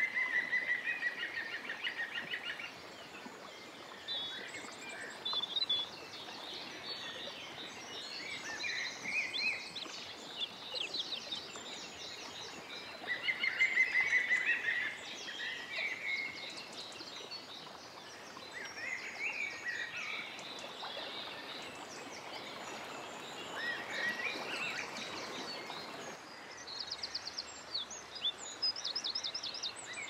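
Several songbirds singing in overlapping phrases of trills and chirps over a steady background hiss, with louder trilled phrases at the start and about halfway through.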